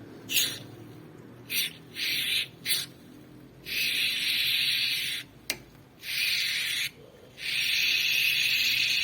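Aerosol can of penetrating oil spraying into a worn speedometer cable: a few short spurts, then three longer sprays, the last one running on.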